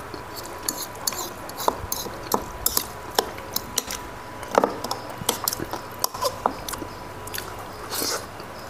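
Close-up eating sounds: chewing with many small, irregular mouth clicks and smacks, and a few light clinks of a spoon against ceramic bowls.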